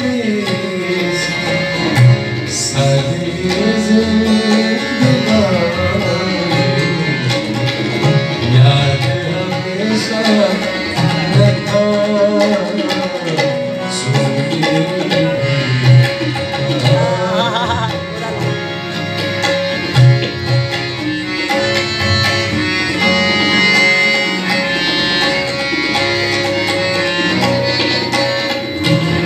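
Live South Asian vocal music: a male voice singing bending, wavering melodic lines over a harmonium, with tabla strokes keeping the rhythm.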